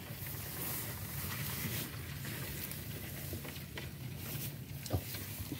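Rice plants and grass rustling as a hand pushes through them, with a few small clicks and one sharper knock near the end, over a low steady hum.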